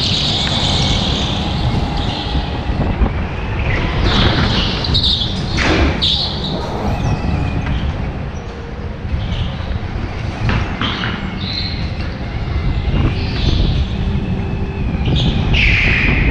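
Onboard sound of an indoor go-kart racing: a continuous low rumble from the kart running at speed, with tyres squealing several times in the corners, loudest at the start and near the end.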